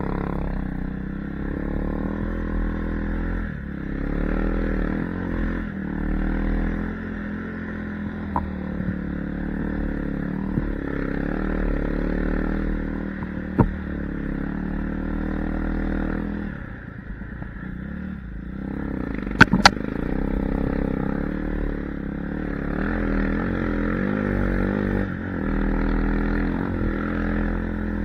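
Snow bike's dirt-bike engine, on a TimberSled track kit, running under throttle while ridden through deep snow, its pitch rising and falling with the throttle. It eases off briefly about two-thirds through, and a few sharp knocks and clacks come through.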